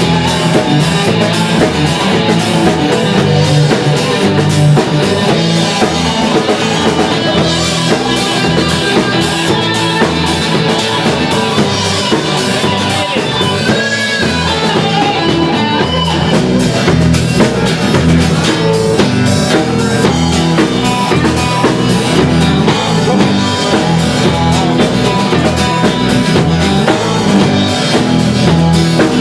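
Rock band playing an instrumental passage live, with drum kit and guitar.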